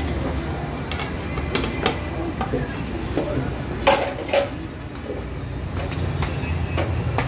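Metal serving tray and bowls clinking as they are handled: light clicks throughout and two sharper clinks with a short ring about four seconds in, over a steady low hum and faint voices.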